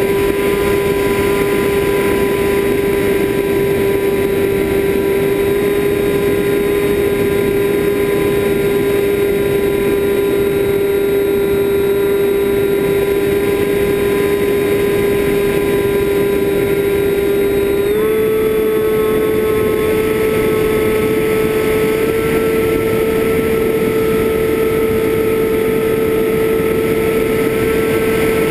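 FPV drone's electric motors and propellers whining steadily at one pitch, with a slight step up in pitch about eighteen seconds in.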